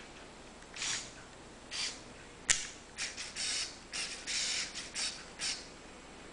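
Plastic gears of a battery-powered Lego Technic truck, driven in short bursts and giving about ten brief creaking, grinding spurts, with one sharp click about two and a half seconds in.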